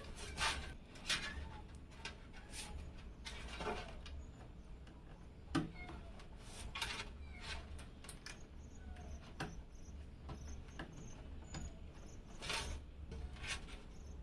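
Scattered light clicks, taps and rubbing as PC case and component parts are handled and fitted during assembly, over a steady low hum.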